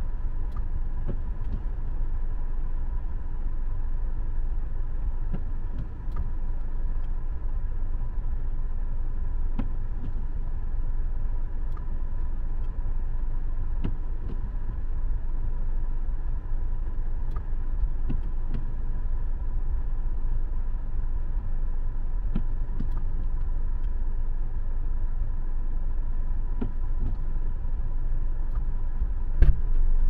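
Steady low rumble of a car on the move, heard from inside the cabin, with faint scattered ticks and one sharp click near the end.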